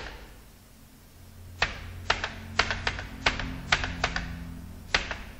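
Computer keyboard keys pressed one at a time: about ten sharp clacks, one at the start and then a run of them over the next few seconds, several in quick pairs.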